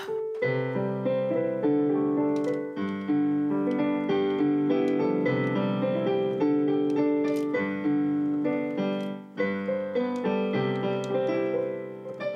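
Digital piano being played: chords and a melody with notes held and overlapping, starting about half a second in.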